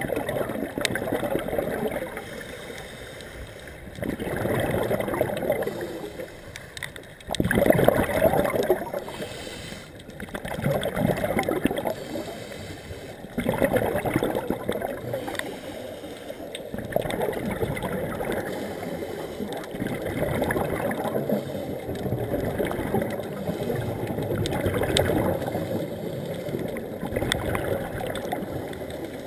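A scuba diver's regulator underwater: gurgling rushes of exhaled bubbles about every three seconds, each lasting two or three seconds, with quieter gaps between breaths.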